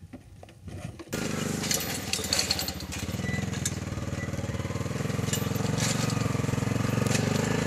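ATV engine running as the quad tows a loaded timber trailer over rough ground, starting suddenly about a second in and growing steadily louder as it approaches, with scattered rattles and clicks.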